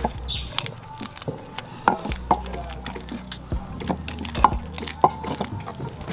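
Wet, irregular knocks and squelches of a pestle grinding mashed cocoyam against an earthenware grinding bowl.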